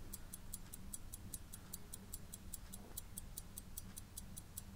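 Mechanical pocket watch ticking fast and evenly, about five ticks a second, over a low steady hum. The sound cuts off suddenly near the end.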